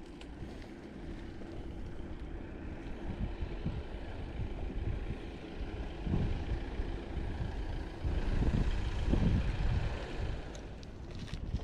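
Wind buffeting the microphone of a moving bicycle, in low rumbling gusts that are strongest about eight to nine seconds in, over the hiss of road traffic that swells in the middle.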